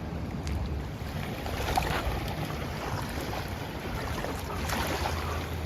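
The Yellowstone River rushing in full flood, a steady hiss of fast water, with wind buffeting the microphone in a low rumble.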